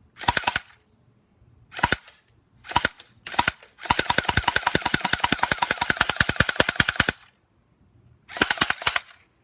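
Electric H&K P30 airsoft pistol firing on full auto, about ten shots a second. It fires several short bursts, a long burst of about three seconds in the middle, and a final short burst near the end.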